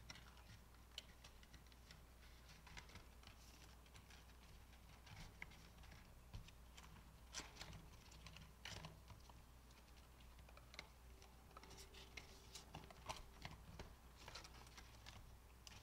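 Very faint scattered clicks and rustles of clear plastic cash envelopes being handled and flipped in a ring binder, over a low steady room hum.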